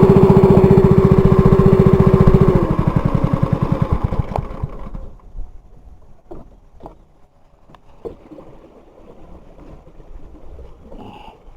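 Small boat engine running with an even beat, then shut off about two and a half seconds in, its beats slowing and dying away by about five seconds. Afterwards only scattered light knocks.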